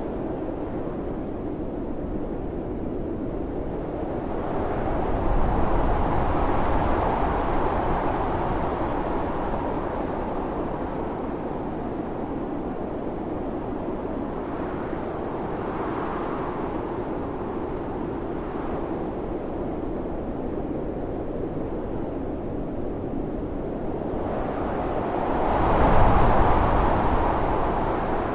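Blizzard wind blowing steadily, with gusts that swell about five seconds in and again near the end, the second one the loudest.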